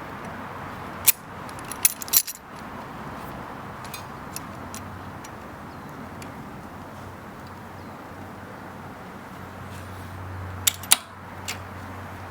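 Vise grips being handled and clamped onto bicycle brakes: a few sharp metallic clicks and clinks about a second and two seconds in, and again near the end, over steady background noise.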